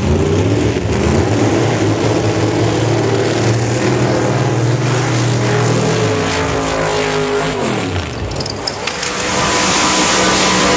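Drag racing car engines: a steady engine note that slides down in pitch about six to eight seconds in, then a louder engine sound near the end.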